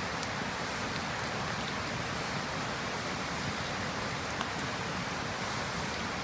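Wood fire burning: a steady hiss with a few faint pops, about a quarter second in, near one second and a little after four seconds.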